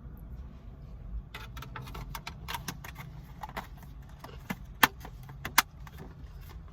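Close-up eating noises: a run of small clicks and clinks that starts about a second in, with two sharp, louder clicks about five seconds in.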